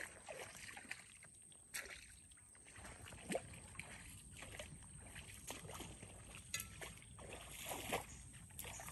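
Faint shallow water sloshing and lapping, with a few scattered small clicks and taps as a live mud crab is handled.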